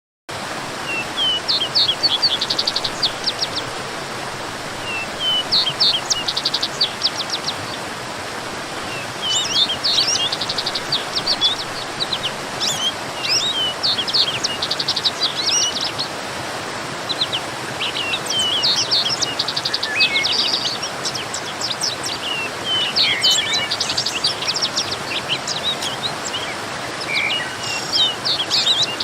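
Songbirds chirping and trilling in quick repeated phrases over the steady rush of a waterfall; the sound cuts in suddenly just after the start.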